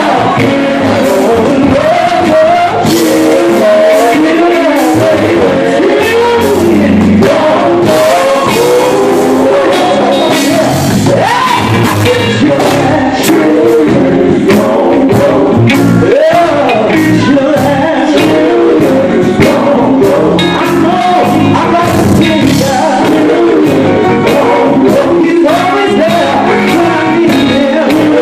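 Live gospel group singing: male lead and backing voices through microphones over an amplified band with electric guitar and a steady beat of sharp hits, loud throughout.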